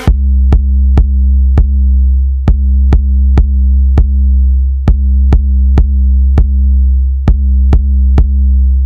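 Electronic dance music: a loud, sustained deep bass with a sharp drum-machine click about twice a second.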